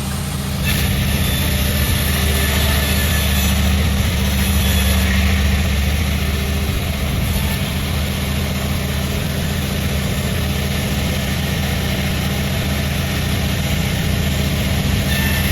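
Sawmill machinery running steadily: an engine hum with a broad hiss over it, a little louder from about a second in.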